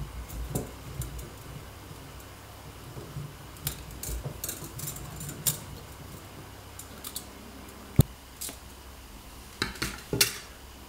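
Cut pumpkin wedges being handled and set into a perforated metal steamer basket, tapping and scraping against the plate and the metal. Scattered light taps, a single sharp knock about eight seconds in, and a quick run of knocks near the end.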